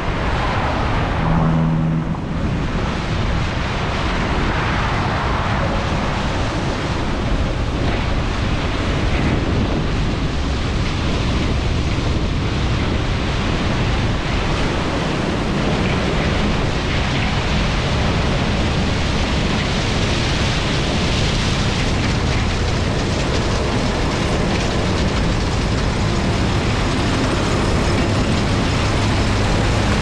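John Deere 7720 Titan II combine running steadily while harvesting corn, its turbocharged six-cylinder diesel giving a low hum under a heavy rush of wind on the microphone. The hum grows stronger near the end as the combine comes closer.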